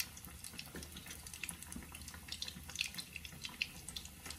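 Oil sizzling softly with many small scattered crackles as a besan-battered stuffed bread pakora fries on a low flame.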